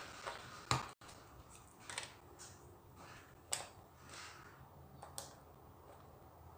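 Small plastic LEGO pieces clicking as they are picked up and pressed onto a baseplate: a few separate sharp clicks, roughly one every second or so.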